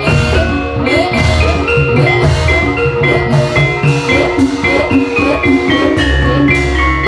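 Javanese gamelan music accompanying an ebeg hobby-horse dance: metallophones ring a busy, repeated melody of struck notes over steady drumming and a low bass beat.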